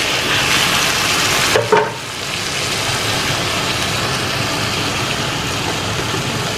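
Chicken broth sizzling in a hot frying pan of shredded chicken and vegetables, a steady hiss that eases a little after a short clink about a second and a half in.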